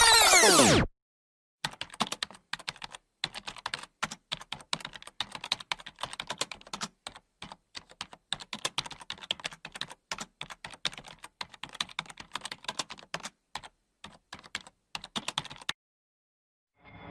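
Typing on a computer keyboard: fast, uneven runs of key clicks with short pauses, lasting about fourteen seconds. Before it, a swooping electronic sound effect cuts off just under a second in.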